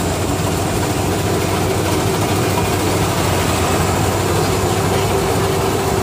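Engine of a Bimo Extreme tracked rice combine harvester running steadily as the machine crawls through a muddy paddy, growing slightly louder as it comes closer.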